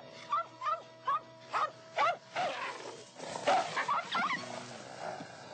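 A dog giving short, high barks and yelps in quick runs of several calls, over background music.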